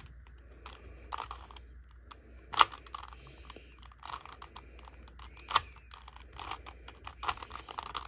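Plastic Rubik's Cube layers being twisted by hand: a run of irregular clicks and clacks, with two louder clacks, one about a third of the way in and one a little past the middle.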